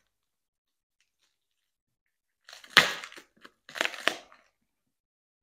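Clear plastic wrapping being pulled and torn open by hand, crackling in two short bursts a little past halfway.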